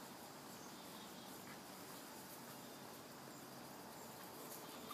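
Faint steady outdoor background hiss, with no clear event standing out.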